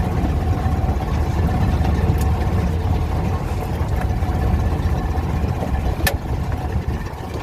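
Steyr Puch Haflinger's air-cooled flat-twin engine running steadily while the vehicle drives, with two brief sharp clicks, about two seconds and about six seconds in.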